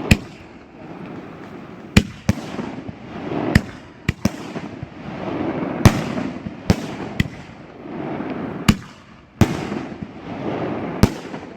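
A large 57 mm firework battery firing its shots one after another. About a dozen sharp, loud bangs come irregularly, every half second to two seconds, with a rushing noise swelling between them.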